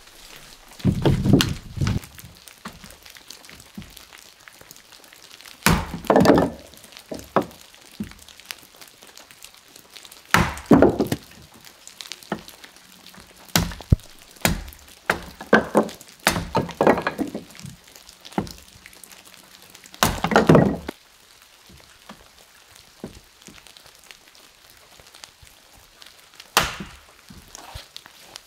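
Short-handled axe splitting firewood on a chopping block: sharp chops and thunks, with the crack of the wood coming apart and pieces clattering, in six or so clusters of strikes with pauses between.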